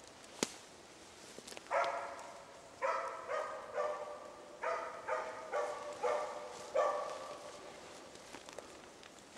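Moose-hunting dog barking at bay (ståndskall), holding a moose cow and calf: about nine barks in uneven groups, each trailing off, from about two seconds in to about seven seconds. A single sharp click comes near the start.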